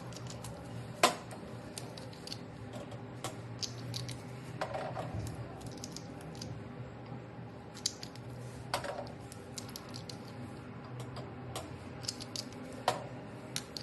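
Small serum bottles and droppers clicking and tapping as they are handled and set down, with the sharpest click about a second in, over a faint steady hum.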